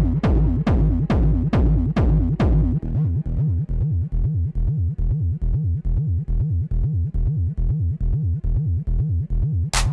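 Techno music: a fast, throbbing bass pulse repeats throughout. The deep kick and sharp high hits drop out about three seconds in, leaving the bass alone, and the high hits come back near the end.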